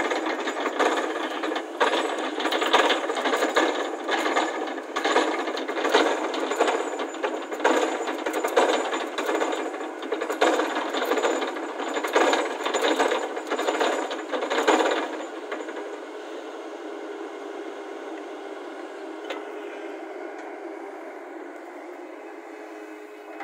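Heavy machinery at work: dense, irregular clattering and knocking over a running machine for about fifteen seconds, then easing to a quieter, steady hum.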